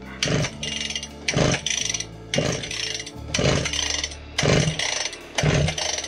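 Recoil starter of a Husqvarna K760 two-stroke power cutter pulled six times, about once a second, the engine turning over without firing at all: it won't start even on fresh fuel.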